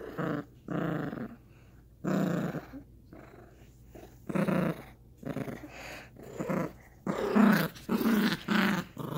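Yorkshire terrier play-growling during tug of war with a plush toy, a string of short growls that get louder toward the end.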